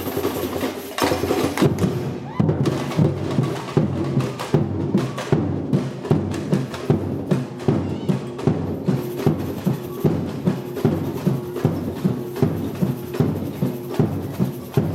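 Batucada samba percussion group playing drums in a steady, driving rhythm.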